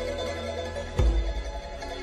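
Cook Islands dance music for a slow-beat section: held notes, with one deep low thump about a second in.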